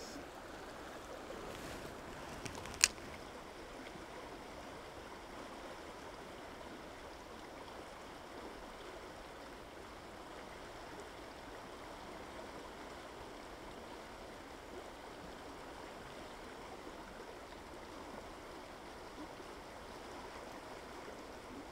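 Steady rushing of a small mountain trout stream, with one sharp click about three seconds in.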